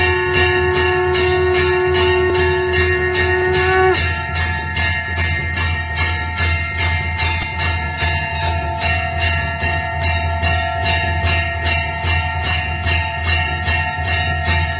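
Temple bell rung continuously in fast, even strokes, about three a second, each stroke ringing on into the next over a steady low hum. About four seconds in, the lowest ringing tone cuts off and the mix of ringing pitches changes.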